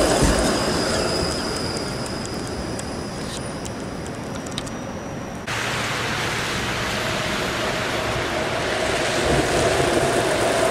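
Flexity Outlook low-floor streetcar passing close and fading away, a thin steady high tone running along with it. After a sudden cut, a steady rushing street noise that grows louder near the end as another Flexity Outlook streetcar approaches.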